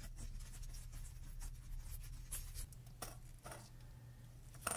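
Faint scraping and light ticking of a Howard Series 5 pocket watch's steel mainspring as it is uncoiled from its barrel by hand, the coils rubbing against each other and the steel bench block, with one sharper click near the end.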